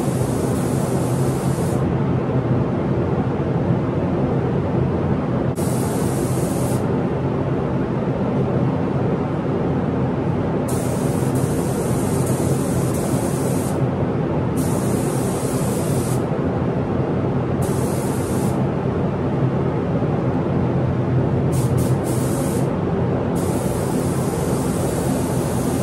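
Air-fed paint spray gun hissing in repeated passes of one to three seconds each, starting and stopping about seven times as paint is sprayed onto the pickup's panel. A steady low drone runs underneath.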